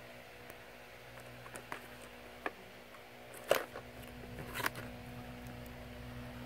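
Plastic VHS clamshell case being handled and turned over on a bedspread: a few light taps and clicks, with two louder sharp clicks about halfway through and a second after, over a faint steady hum.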